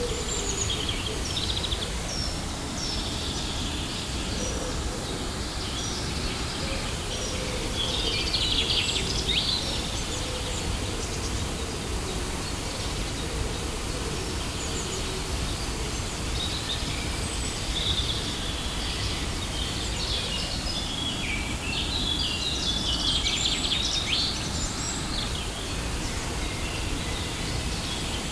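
Steady rushing of a waterfall with birds chirping over it, the birdsong busiest about a third of the way through and again in the last third.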